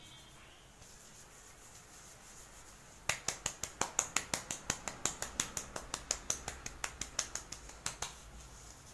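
Hands patting and rubbing a heavily oiled scalp and hair in a champi massage, making a quick run of wet slapping 'chap chap' sounds, about six a second, that starts about three seconds in and stops near the end.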